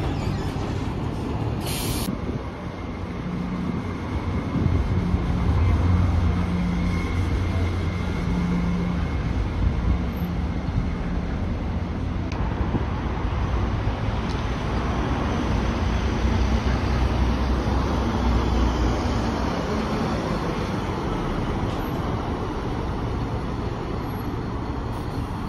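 Diesel buses running and moving off, a deep engine drone over traffic noise that swells about five seconds in and again around fifteen seconds in. There is a brief hiss about two seconds in.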